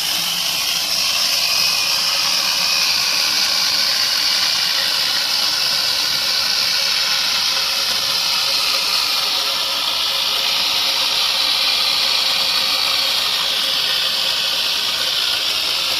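Electric angle grinder fitted with a chain saw attachment, running steadily with its chain cutting through wood: a loud, high-pitched, hissing whine that shifts slightly in pitch as it works through the cut.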